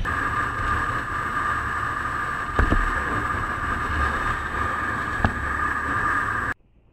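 Motorcycle riding along a road, heard through the bike-mounted camera's microphone: steady engine and wind noise with a constant high hum, two short knocks about two and a half seconds apart, then a sudden cut-off near the end.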